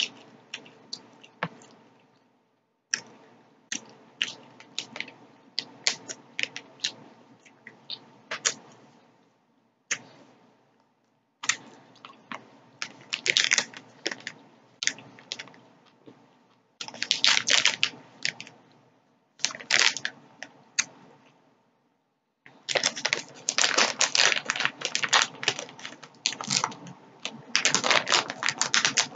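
Close-up chewing of sugar-coated peach gummy rings, with the sugar crust crunching between the teeth. Scattered sharp crunches come in the first half, then longer runs of dense crunching in the second half, with short pauses between.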